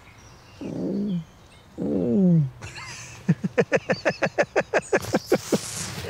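A man's voice makes two short sounds that fall in pitch, then breaks into laughter, a fast run of about five 'ha' pulses a second ending in a breathy wheeze.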